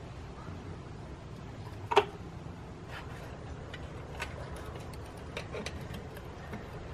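Clicks and ticks of hand tools and parts as the Saab 9-5's oil pump cover and snap ring are worked into place at the front of the crankshaft. One sharp click about two seconds in, then a few fainter ticks over a steady low hum.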